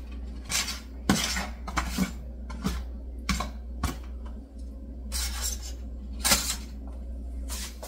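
Scattered clinks and knocks of cookware and utensils at a soup pot on the stove as chopped vegetables are tipped in, the loudest knock about six seconds in. A steady low hum runs underneath.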